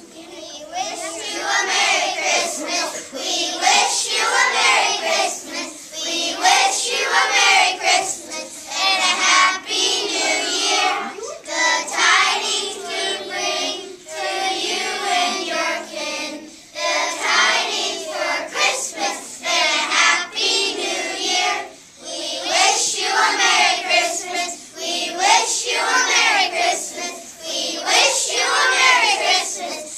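A group of young children singing a song together, in sung phrases with short pauses for breath between them.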